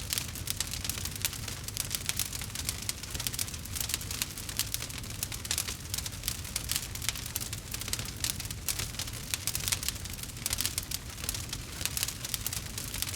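Wood fire crackling: a dense run of sharp snaps and pops over a steady low rumble.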